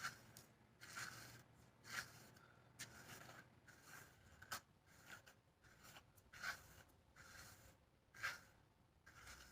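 Faint brush strokes through wet wig hair with a Denman-style brush, a short scratchy rub about once a second.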